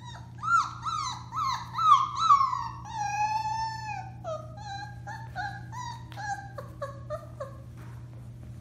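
Four-week-old Alaskan Malamute puppy howling: a quick run of about six short rising-and-falling yips, then one longer note that slides down, then a string of shorter, lower notes trailing off.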